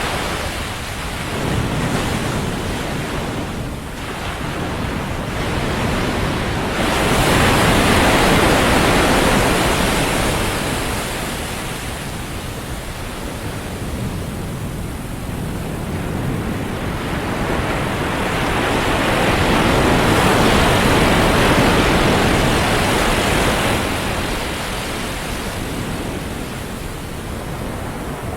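Ocean surf breaking on a sandy beach: a steady rush of waves that swells up twice, once about a quarter of the way in and again past the middle, then eases back.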